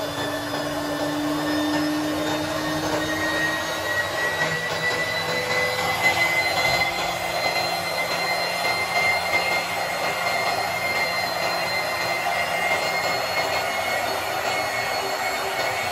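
Lab emulsifying homogenizer mixer running in a plastic beaker of liquid: a steady high electric motor whine whose pitch rises slowly over the first several seconds, with a rougher churning noise from the mixing head growing about six seconds in.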